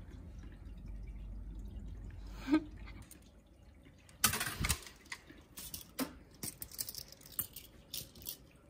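Low steady room hum with a single click, then a cat pouncing on a string toy over a shaggy rug and wooden floor: a sudden loud rustle about four seconds in, followed by a run of short scrapes and taps as it bats at the toy.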